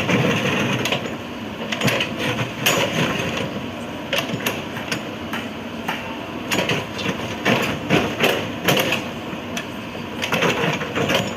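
Excavator at work: irregular knocks and clanks over a continuous machine noise.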